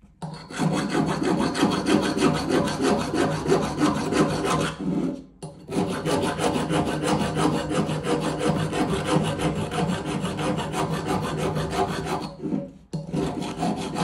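Bosch multitool's X-cut file rasping back and forth on metal in fast strokes. It goes in three runs, with short pauses about five and twelve seconds in. The file is less sharply cut than the Leatherman Rebar's and needs more rubbing to bare the metal.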